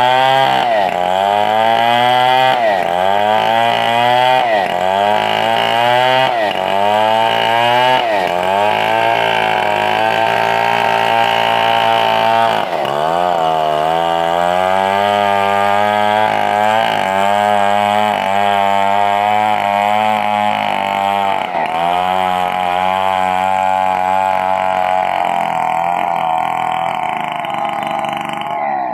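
Chainsaw ripping lengthwise through a 4-metre coconut-wood log, its engine running hard under load. For the first dozen seconds the engine speed sags and recovers about every two seconds as the bar bites into the wood, then it holds a steadier, lower note.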